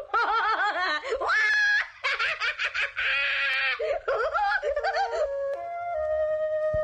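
High-pitched cartoon voices giggling and laughing in quick repeated bursts. Near the end they give way to a few steady held music notes.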